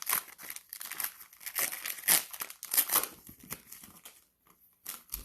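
Plastic cello-pack wrapper of a basketball card pack crinkling and tearing as it is opened by hand, in irregular crackles that thin out near the end.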